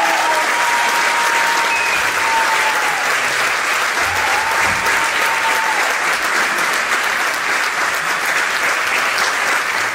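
Audience applauding loudly and steadily as a concert ends, with a couple of long whistles over the clapping.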